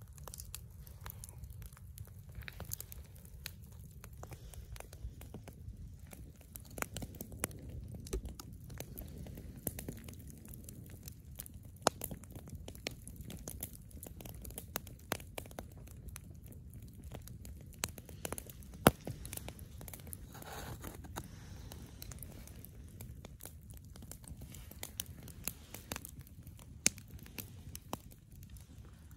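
Wood campfire crackling, with irregular sharp pops.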